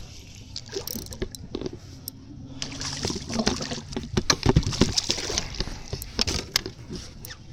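Splashing and sloshing water with many sharp knocks and clicks, busiest from about three seconds in: hooked crappie thrashing at the surface as they are brought to the boat.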